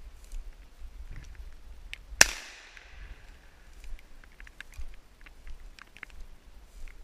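A single shotgun shot about two seconds in, sharp and loud, its echo dying away over about a second: a shot at a flushing red-legged partridge that brings the bird down.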